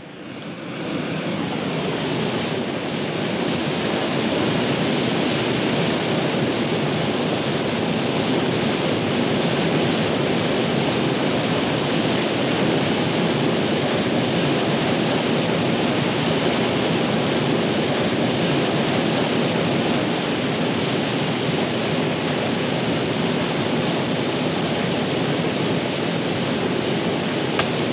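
Loud, steady rush of whitewater rapids at a falls, fading in over the first couple of seconds.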